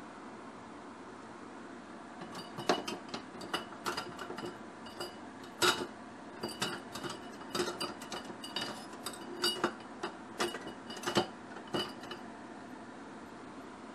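Kitchen utensils and dishes clinking together: a run of irregular light clinks, each with a short ring, starting about two seconds in and lasting about ten seconds.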